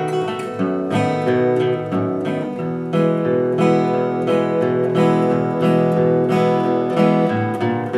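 Steel-string acoustic guitar fingerpicked in a steady four-count blues rhythm, with bass notes under the chord.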